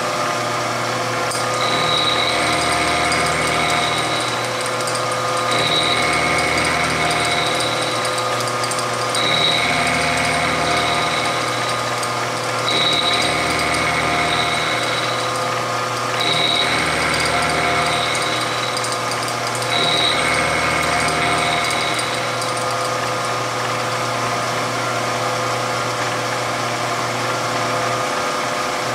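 Milling machine spindle running as an end mill cuts around the ratchet of a stainless-steel Smith & Wesson Model 686 revolver cylinder. The cutting sound swells about every three and a half seconds, six times in a row, then settles to a steady machine hum near the end.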